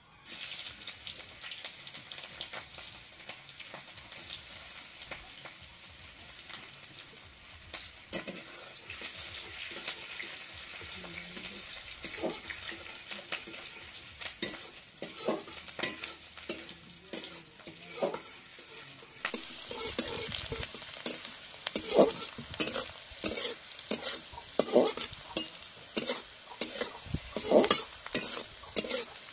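Chopped onions hitting hot mustard oil, sizzling all at once, then frying on while a spatula stirs and scrapes the pan. The scraping strikes come faster and louder in the second half.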